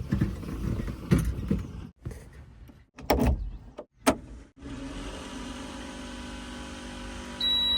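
Heavy diesel machinery engine running, broken by several abrupt cuts in the sound; from about halfway through it settles into a steady idle.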